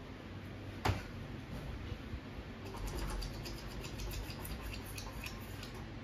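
1989 Casablanca Venus ceiling fan coasting down after being switched off, with a sharp click about a second in. A run of light ticks follows in the second half.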